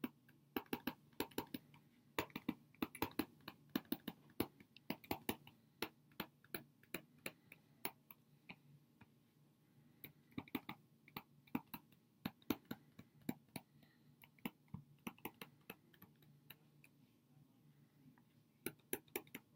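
Faint, irregular clicks of a pen stylus tapping on a tablet as words are handwritten, coming in quick runs of several a second with short pauses between. A faint steady low hum sits underneath.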